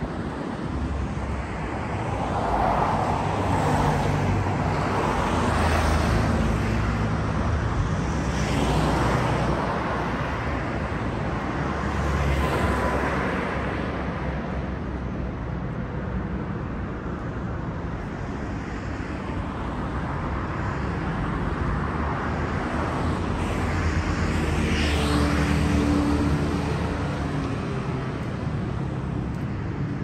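Road traffic: several cars pass one after another on a city street, each a slow swell of tyre and engine noise over a steady low rumble.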